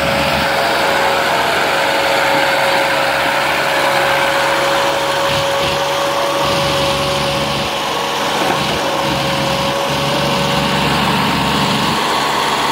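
Massey Ferguson tractor diesel engines running hard and steady under heavy load, pulling a loaded trolley so hard that the front wheels lift. A steady whine runs alongside and fades out about eleven seconds in.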